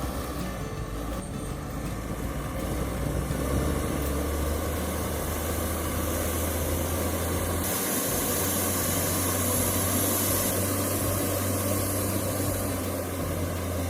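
Tractor engine running steadily with a low hum. A higher hiss joins for a few seconds just past the middle.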